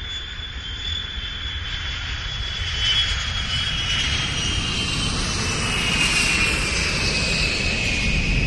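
Aircraft engine growing steadily louder: a high whine slowly falls in pitch over a rushing noise and a deepening rumble.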